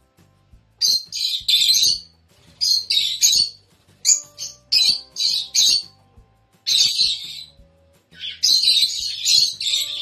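Pet rosy-faced lovebirds and budgies giving shrill, harsh chirps in repeated bursts of a second or so, with short quiet gaps between them.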